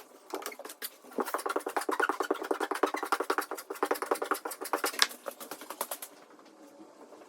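Hand-tool work on a drywall patch: quick, even back-and-forth scraping or rubbing strokes from about a second in until about five seconds, ending in a sharp click, then fainter scratching.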